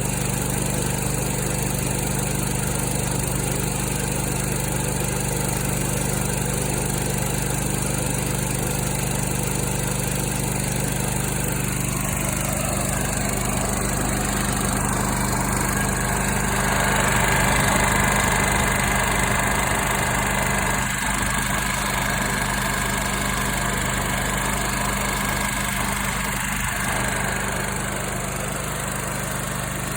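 Kohler Command Pro ECV749 EFI V-twin engine running steadily on its first run as a brand-new engine, with a slight swell in level around the middle.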